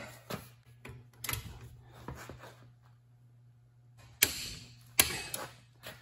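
Scattered clicks and knocks of hand tools being handled on a concrete shop floor, a few light ones first and then three sharper knocks in the second half, over a faint steady hum.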